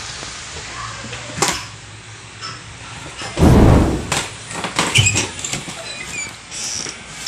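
Quiet small-room sound with scattered clicks and knocks, and one loud brief rush of noise about three and a half seconds in.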